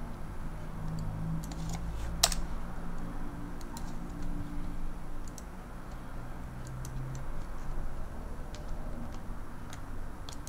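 Scattered clicks of a computer keyboard and mouse, a dozen or so spread unevenly, with one louder click about two seconds in.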